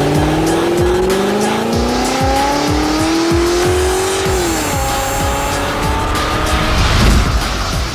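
Intro music with a thumping beat, about two beats a second, under a car sound effect: an engine revving with its pitch climbing for about four seconds, then dropping off, followed by a shorter rise.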